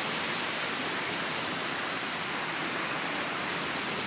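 Steady, even hiss of surf breaking on a sandy beach, with no pauses or swells.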